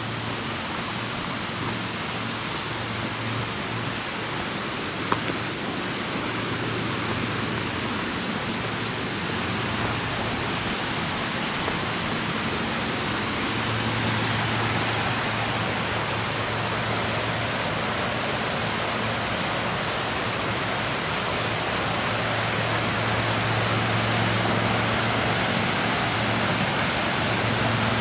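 Waterfall rushing steadily, a dense even hiss that slowly grows louder, with a single sharp click about five seconds in.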